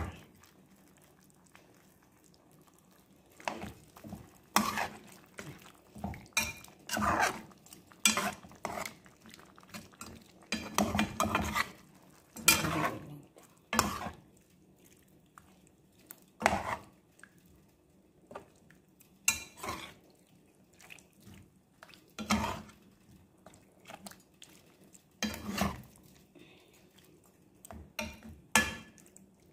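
A metal slotted spoon scraping and knocking against a pan while stirring chicken pieces in adobo sauce. The irregular clatters start a few seconds in.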